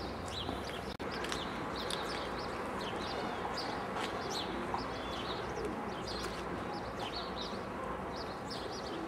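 Small birds chirping, many short high calls in quick succession over a steady outdoor background hiss, with a brief drop-out about a second in.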